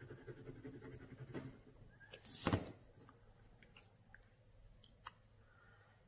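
Quiet tabletop handling sounds while liquid glue is applied to a paper card piece: a short rush of noise about two and a half seconds in, then a few light clicks and taps.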